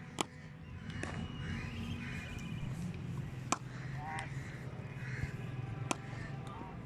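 Cricket balls being struck by bats at net practice: three sharp cracks a few seconds apart, with fainter knocks between. Crows caw in between the strikes.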